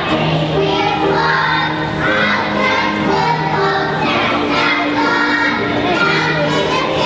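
A group of young children singing together over instrumental music with steady held low notes.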